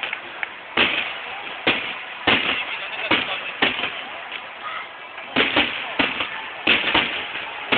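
Aerial fireworks shells bursting in a rapid, irregular series of sharp bangs, sometimes several a second, each followed by a short echoing tail.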